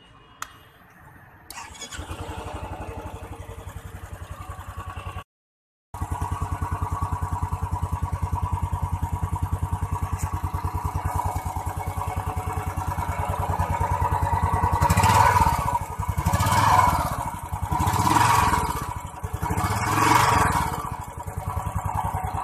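Royal Enfield Classic 350's 346cc single-cylinder engine starting about a second and a half in and settling into a steady, even idle thump. Near the end the throttle is blipped four times, each rev rising and falling back to idle.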